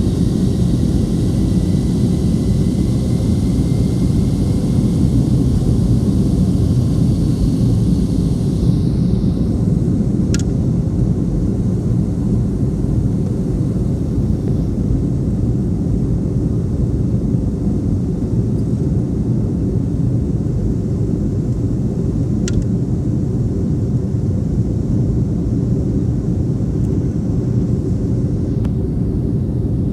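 Steady low rumble of a Boeing 757-200's jet engines and rushing air, heard inside the passenger cabin after takeoff. A higher hiss fades about a third of the way in, and there are two faint clicks.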